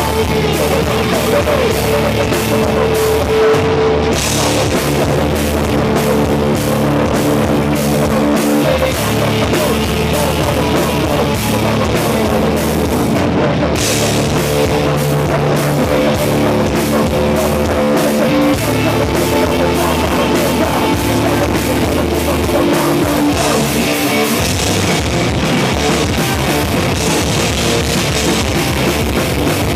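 Live crossover thrash band playing loud through a club PA: distorted electric guitars and bass over rapid drum-kit beats, without a break.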